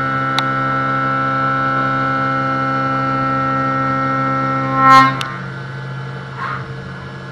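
CNC machining centre milling 6082 aluminium plate: the cutter gives a loud, steady whine made of several pitches at once. About five seconds in there is a brief loud burst as the cut ends, and the machine runs on more quietly.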